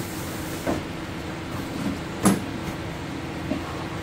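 A bag and its cardboard gift box being handled, giving a few soft knocks. The sharpest and loudest knock comes a little over two seconds in. A steady background hum runs underneath.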